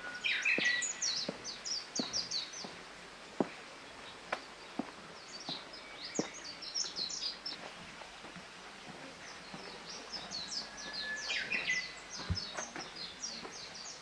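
A songbird singing three phrases, each a rapid run of high, quick notes; the first and last open with a held whistle. A few soft clicks and knocks fall in between, one sharper than the rest.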